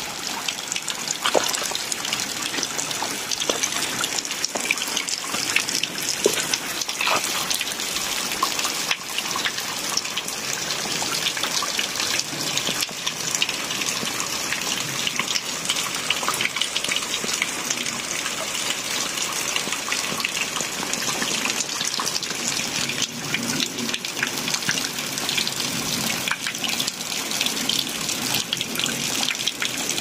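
Small waterfall of thin streams and drips falling from a moss-covered rock face onto rocks below: a steady splashing rush, dotted with many small splashes.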